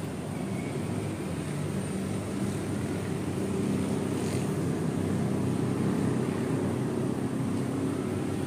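Steady low rumble of distant engines, slowly growing louder.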